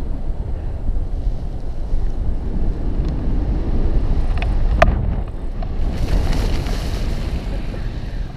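Wind rushing over the camera microphone during a tandem paraglider's low approach to landing, a steady low rumble. About five seconds in there is a brief click, and from about six seconds on a brighter hiss joins the rumble.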